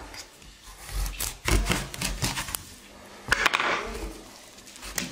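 Kitchen knife cutting pumpkin, with a quick run of knocks and clicks of the blade against a plastic cutting board about a second in, then a longer scraping cut a little past halfway.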